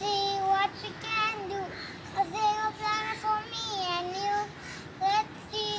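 A child singing solo, a single high voice holding long notes and sliding between them in short phrases.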